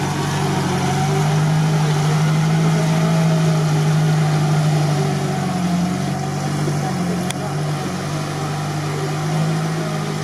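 Off-road 4x4's engine running steadily at low revs, with a single sharp click about seven seconds in.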